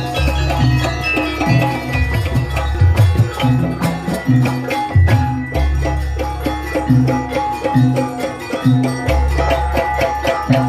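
Javanese jaranan music: rapid hand-drum strokes and struck tuned percussion over long, deep, recurring bass tones, played loud.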